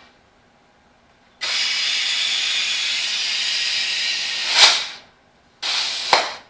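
Compressed air hissing through an air chuck into a tractor tire's inner tube: one long burst of about three and a half seconds, then a shorter one, each ending in a sharper hiss.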